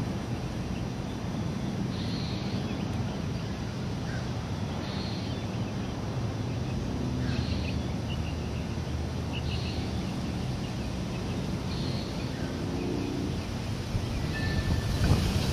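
Wind blowing across the microphone in a steady rush, with a bird's short high call repeating about every two and a half seconds. Wind chimes start ringing near the end.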